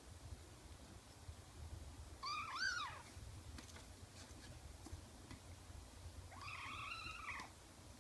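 Four-week-old kitten mewing twice: a short, high mew rising and falling about two seconds in, then a longer arched mew about six seconds in.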